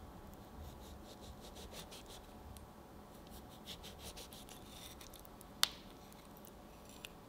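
Knife cutting segments out of a peeled grapefruit: faint, crackly wet snips and scrapes as the blade slides along the membranes, with one sharp click about three-quarters of the way through.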